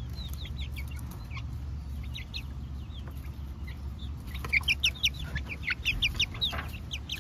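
Young chickens calling close by: short, high peeps and chirps, scattered at first, then coming quickly one after another through the second half.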